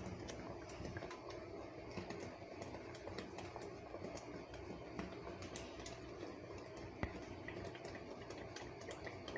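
Faint, irregular popping and ticking of thick egg curry gravy simmering in a steel pan, over a low steady hum, with one sharper click about seven seconds in.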